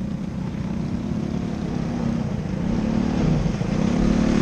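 Engine of a small winged sprint car running on a dirt track, getting louder over the second half as it comes closer, with a couple of brief dips in pitch.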